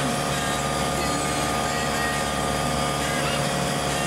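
Steady wind rush on a sailboat's deck, with a constant hum under it.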